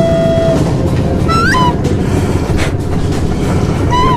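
Small pitbike engine running hard over a heavy rumble. Its whine holds a steady pitch, drops out briefly, then climbs sharply and falls back to a lower note about a second and a half in. It climbs and drops again near the end.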